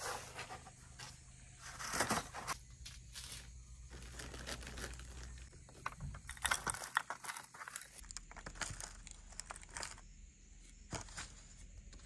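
Irregular rustling and crinkling from something being handled, coming in several separate spells.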